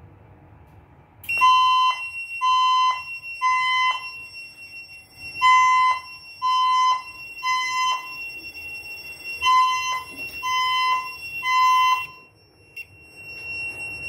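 Fire alarm voice-evacuation speaker sounding the temporal-three evacuation tone, loud: three half-second beeps of about 1 kHz, a pause, and the group repeated, three groups in all. The beeps start about a second in and stop shortly before the spoken message resumes. A steady high tone runs beneath them.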